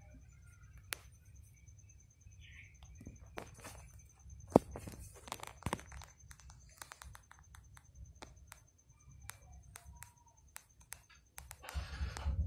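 Quiet room with scattered faint clicks and rustles, the sharpest a single click a little over four seconds in. Near the end a low motor-vehicle rumble swells in and grows louder.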